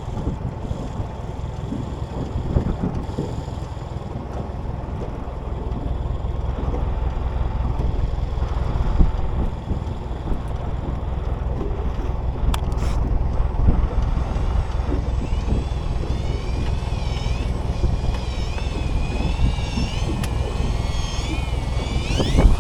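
Wind buffeting the microphone over a steady low rumble on a small fishing boat at sea, with a sharp click about halfway through.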